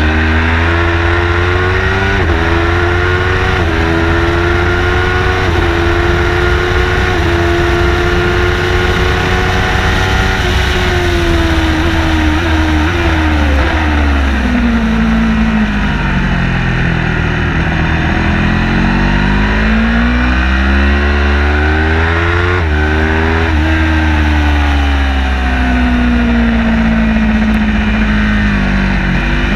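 Car engine at racing speed on a track lap: it revs up through the gears with brief dips in pitch at each shift, falls off sharply about halfway through as the car slows for a corner, then climbs hard again and eases near the end. A constant low rumble runs underneath.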